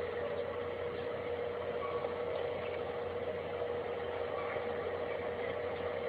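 Steady droning hum with one held tone over a noisy background, unchanging throughout, in a low-quality recording.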